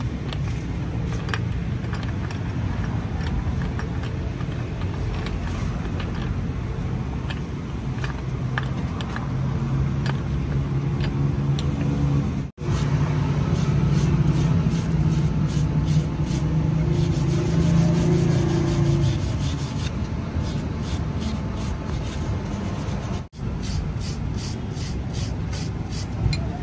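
Faint clicks of pliers stirred in a cup of liquid, then, about halfway through, repeated scraping strokes of a wooden block rubbed back and forth over the rusty pliers on a steel block, about three strokes a second near the end. A steady low hum runs underneath.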